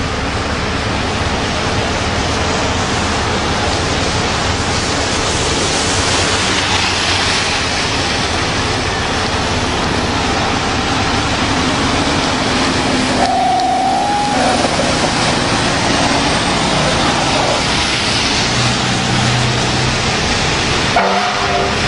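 Loud, steady rushing noise of passing road vehicles, with a short pitched tone about halfway through and a horn-like tone starting near the end.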